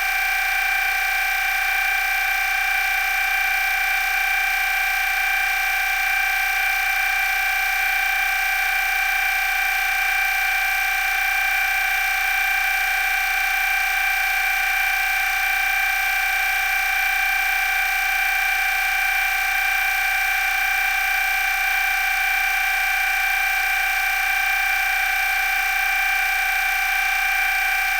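Electric motor running steadily, a constant high whine made of several even tones over a hiss, with no change in speed.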